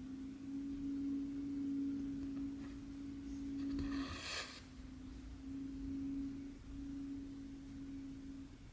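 A steady hum held at one pitch, breaking off for a moment about four seconds in while a short rustle sounds, then carrying on.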